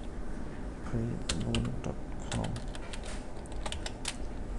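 Typing on a computer keyboard: separate, irregular key clicks, several in quick succession in the second half.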